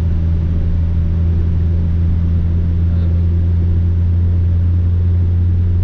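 High-mileage car being driven: a steady low engine and road drone under an even haze of wind and road noise.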